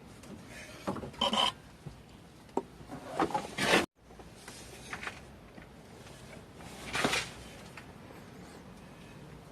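Short, irregular bursts of rubbing and scraping with a few clicks, as of hands and tools handling parts; the sound drops out abruptly for an instant just under four seconds in.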